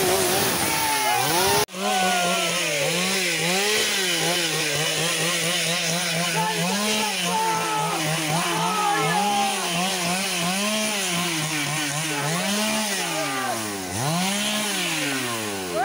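A small engine revved up and down over and over, its pitch swelling and falling about once a second, breaking off for a moment about two seconds in.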